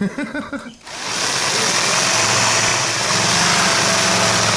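Bosch electric drill with a 10 mm masonry bit running steadily, boring into the hard shell of an ostrich egg; it starts about a second in.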